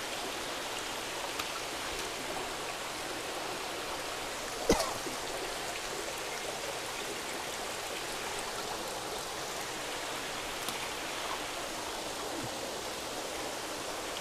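Steady running water from the pipes and overflows of a recirculating fish-tank system, with one sharp knock about four and a half seconds in.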